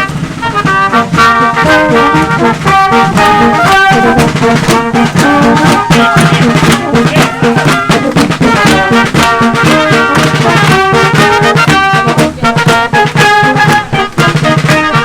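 Band music led by brass, trumpets and trombones playing a tune over a beat.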